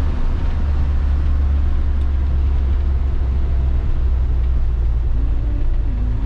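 Converted bus motorhome driving on the road: a steady low engine and road rumble heard from inside the cab.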